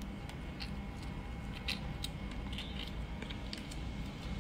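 Faint, irregular clicks and cracks of a squirrel gnawing and handling walnuts, with shells knocking together on a plastic sheet, over a steady low hum.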